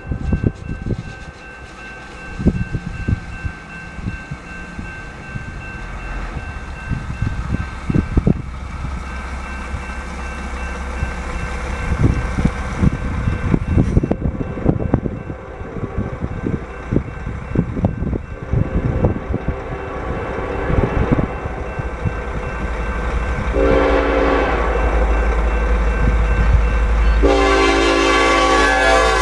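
An EMD SD70ACe diesel locomotive approaches a grade crossing with its engine rumble building. It sounds its air horn in a blast of about a second and a half, then a long blast near the end, the warning for the crossing. Before the horn, a string of irregular knocks and rattles sits over the rumble.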